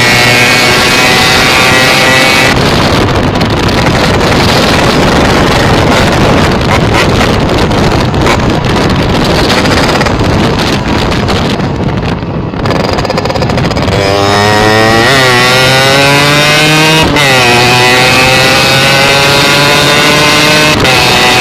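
Old Yamaha RX-King 'Cobra' two-stroke single-cylinder motorcycle engine running while being warmed up: a steady idle, a rougher, noisier stretch in the middle, then two short throttle blips before it settles back to idle.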